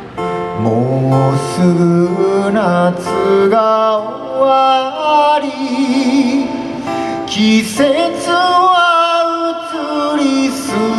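A man singing a slow ballad to his own strummed acoustic guitar, amplified through a stage PA, with long wavering held notes.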